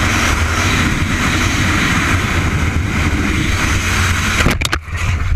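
Steady rush of wind and engine drone from a sport motorcycle travelling at highway speed, heard from a camera mounted on the bike. It cuts off sharply about four and a half seconds in, followed by a few short clicks.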